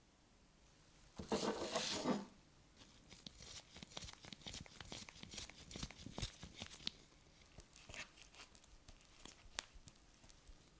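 Masking tape pulled and torn off the roll, a loud tearing lasting about a second, followed by a run of light clicks and taps as small metal parts and a spatula are handled on a wooden workbench.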